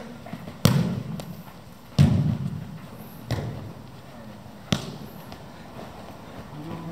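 Futsal ball being kicked and passed: four sharp thuds with an echo after each, the loudest about two seconds in.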